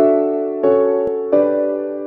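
Background music: three sustained chords struck about two-thirds of a second apart, each left to ring and fade.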